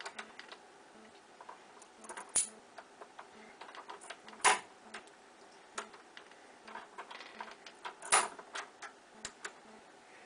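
Bump key being struck into a Schlage deadbolt's pin-tumbler cylinder: sharp metallic taps, the loudest three about two, four and a half and eight seconds in, with lighter clicks of the key and pins between.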